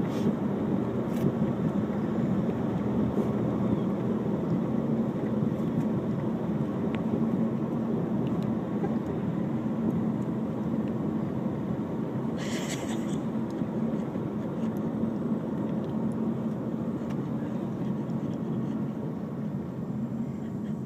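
Steady road and engine noise inside a moving car's cabin, with a brief hiss about twelve seconds in.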